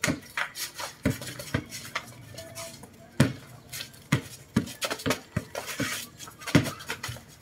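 An irregular series of sharp knocks and clatters, about two a second.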